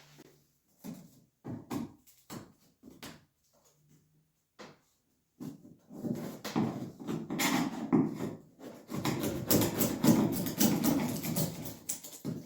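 A few scattered knocks and handling taps, then about five seconds in a long, dense run of rough scraping and crackling as loose fiberglass patching is pried and peeled away from the gel coat of a fiberglass sailboat hull.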